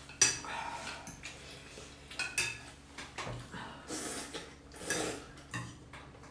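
Metal spoons and chopsticks clinking and scraping against ceramic soup bowls in short, scattered taps, with noodles being slurped from the bowls.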